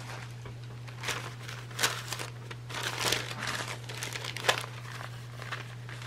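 Thin sheets of collage paper rustling and crinkling as they are handled and sorted, in irregular bursts with a couple of sharper crackles, one about two seconds in and one just past the middle.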